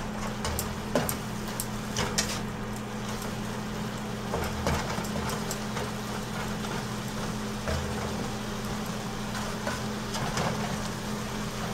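A spatula scraping and tapping against a nonstick frying pan as sautéed cauliflower is stirred, a few separate scrapes spread through, over a steady low hum.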